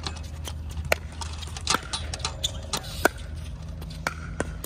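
Pickleball paddles hitting hard plastic balls: a string of sharp, irregularly spaced pops, the loudest about three seconds in, over a steady low hum.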